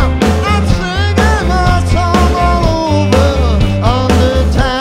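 Live rock band playing: electric guitars, bass guitar and drums on a steady beat, with a man singing a gliding melody into a microphone.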